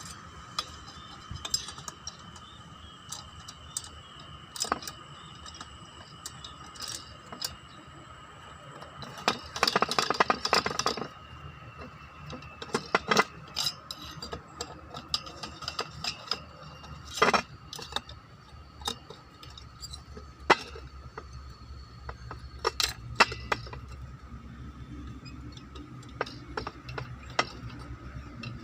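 Metal tools and small engine parts clinking and tapping while a brush cutter engine is taken apart, with a quick run of clinks about ten seconds in.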